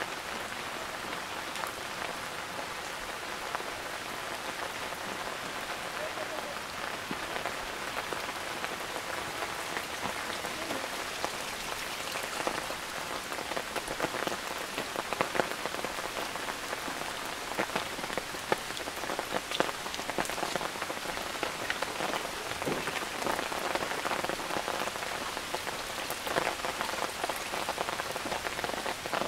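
Steady rain falling, with many individual drops landing as sharp ticks among the constant hiss, the drops heavier and more frequent in the second half.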